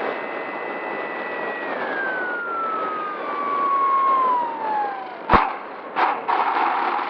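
FPV quadcopter motors whining, the pitch falling steadily as the throttle comes off. The whine ends with a sharp knock about five seconds in, and a second knock follows a moment later.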